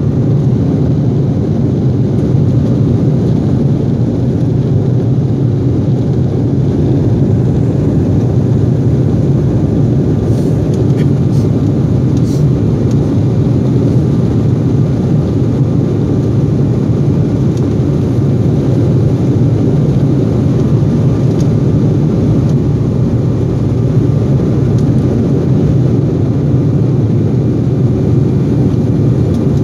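Jet airliner on its takeoff roll, heard from inside the cabin: engines at takeoff power and the roll down the runway make a steady, loud, low roar.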